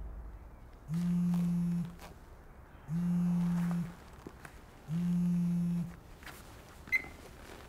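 Mobile phone buzzing on vibrate with an incoming call: three steady low buzzes of about a second each, about two seconds apart. A small click near the end.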